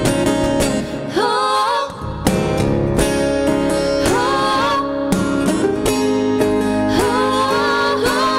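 Two singers singing a pop song in harmony over acoustic guitar accompaniment, performed live.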